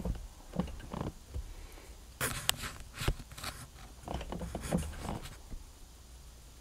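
Handling noises: scattered clicks, light knocks and rustling, with a cluster of sharp clicks about two to three seconds in.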